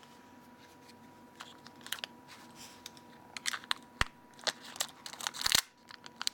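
Clear sticky tape crinkling and crackling as fingers handle it and press it onto a Nokia N8's plastic top cover, with scattered sharp clicks. Quiet for the first second or so, then busiest in the second half.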